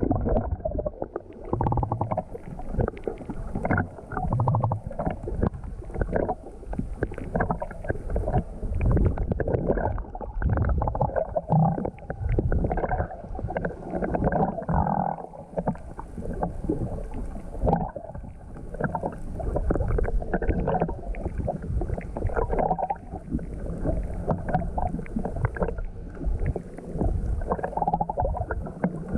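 Choppy sea water sloshing and gurgling, heard muffled, with irregular knocks and surges throughout.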